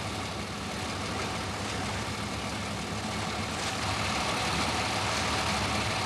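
Steady low engine rumble under a hiss that gets louder about halfway through.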